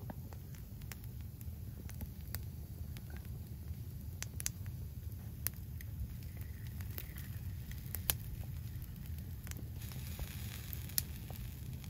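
Small wood fire crackling under fish roasting on sticks, with sharp pops scattered through, the loudest about eight and eleven seconds in, over a steady low rumble.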